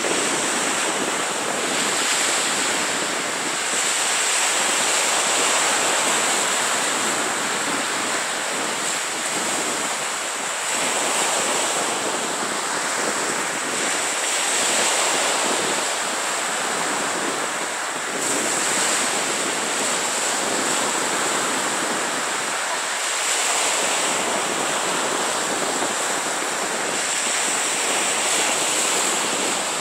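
Small surf breaking and washing up a sandy beach, a steady rush that swells every few seconds as each wave comes in.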